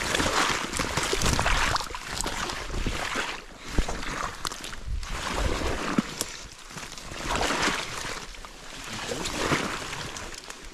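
Dry reeds rustling and crackling, with water sloshing, as someone wades and pushes a hand through a matted reed bed. The noise comes in repeated swells a second or so long.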